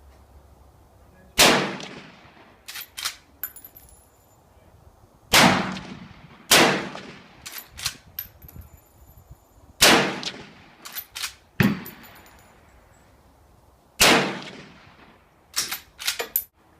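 Six gunshots fired slowly, a few seconds apart, each with a short echoing tail. Between the shots come clusters of light metallic clinks and clicks.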